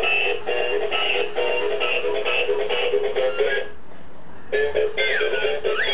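Electronic melody playing from a musical walking plush toy's built-in sound chip, with a short break about two-thirds of the way in before the tune resumes with sliding notes.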